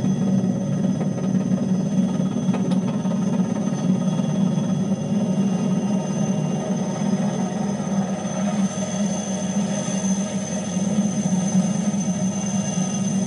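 A steady, low, rumbling drone with no beat or melody: the ambient soundtrack of a video artwork playing over loudspeakers into the room.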